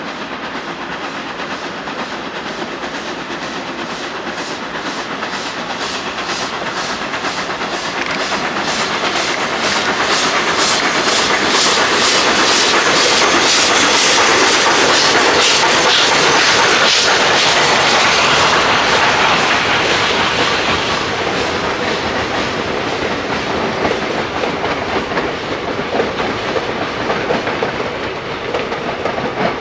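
Garratt steam locomotive working a freight train past, its exhaust beats growing loudest as it draws level and then fading. Near the end the freight wagons roll by, their wheels clicking over the rail joints.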